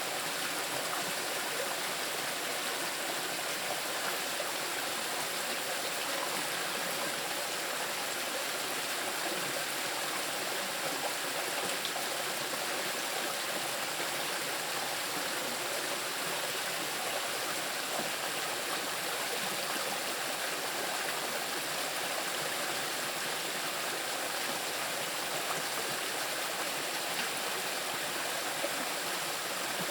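Small river rushing and splashing over moss-covered rocks, a steady, even rush of water without a break.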